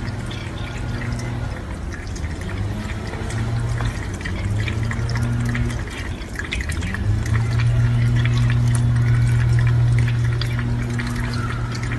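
Water running from a kitchen faucet into a stainless steel sink, with a patter of small splashes over a steady low hum.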